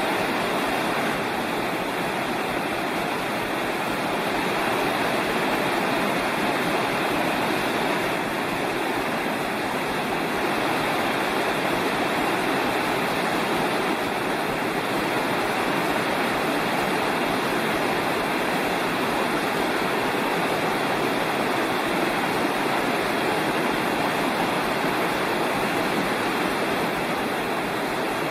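Rushing mountain creek: a steady, unbroken roar of fast-flowing water over rocks.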